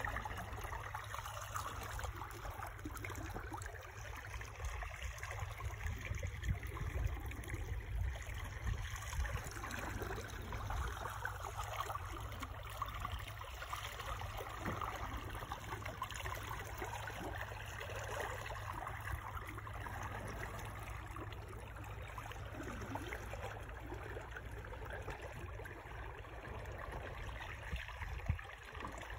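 Water rushing and trickling steadily along a sailboat's hull and past its stern while it sails in light wind, with wind fluttering on the microphone. A single short knock comes near the end.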